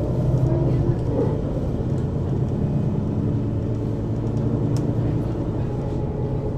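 Mercedes-Benz Citaro city bus under way, heard from inside over the second axle: the engine and ZF Ecomat automatic transmission running with a steady low drone.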